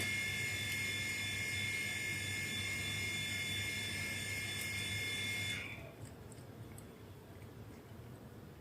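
A steady high-pitched machine whine over a low hum, cutting off suddenly about five and a half seconds in, leaving only faint small clicks.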